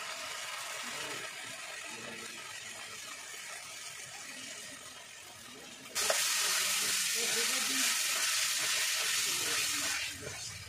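Onion masala sizzling in a kadai over a wood fire as it is stirred with a ladle, a lower hiss at first, turning suddenly much louder about six seconds in and dropping away near the end.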